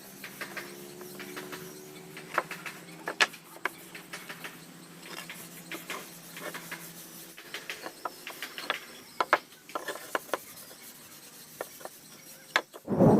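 Irregular light clicks and taps of wooden pieces being handled at the workbench, over a steady low hum, with one loud thump near the end.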